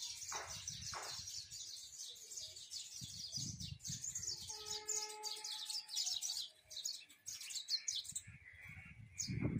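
Many small birds chirping and twittering in a rapid, continuous chorus, faint against a low intermittent rumble.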